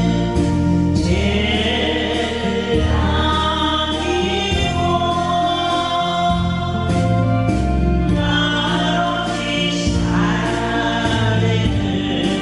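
A group of voices singing a Korean song together over instrumental accompaniment, with long held notes.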